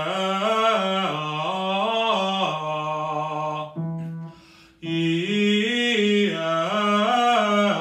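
A man singing vocal warm-up scales on an open vowel, his pitch stepping up and down in short repeated runs. He stops for a breath about four seconds in, then starts the pattern again.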